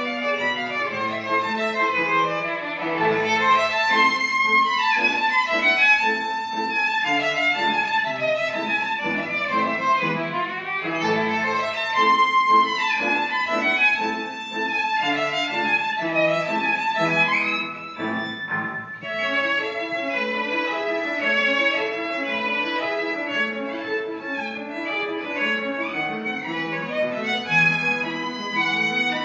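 Violin playing a classical melody, with a brief break in the phrase a little past halfway.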